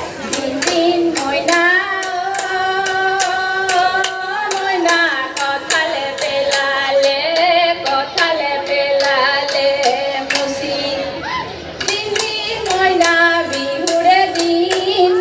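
Women's voices singing a Jeng Bihu folk song together, with a steady beat of sharp claps, about three a second.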